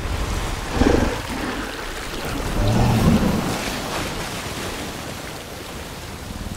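Monster-movie sound design for a giant ape fighting in water: a deep rumble with water noise that swells twice, about a second in and again around three seconds in, then settles lower.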